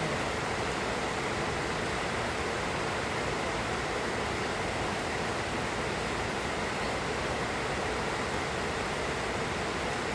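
Moderate rain falling steadily, an even hiss that does not let up.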